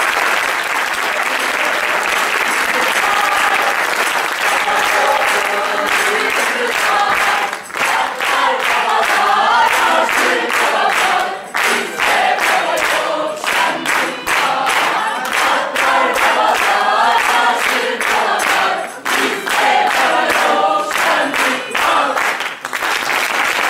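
Theatre audience applauding steadily, with a group of voices singing a song together over it from a few seconds in.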